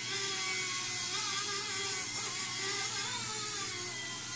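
Blade mSR X micro RC helicopter in flight: the high whine of its small electric motors and rotor, steady in level, its pitch wavering up and down.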